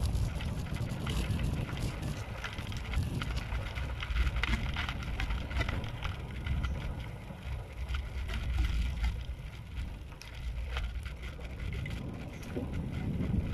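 Wind buffeting the microphone and tyre rumble while riding along a concrete road, with light rattling clicks throughout.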